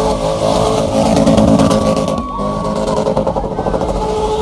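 Car engine held at high revs during a car-spinning display, steady, with a brief dip a little after two seconds in.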